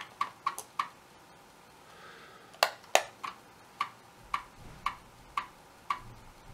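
Amiga 1200 floppy drive reading a program from disk: soft regular ticks about twice a second as the head steps, with a low drive-motor hum from about four seconds in. A mouse button is double-clicked between two and three seconds in, the two loudest clicks.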